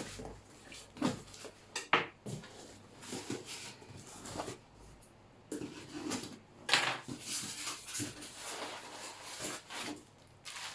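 A parcel being unpacked by hand: packaging rustling and tearing, with scattered knocks and clicks as things are handled on a desk.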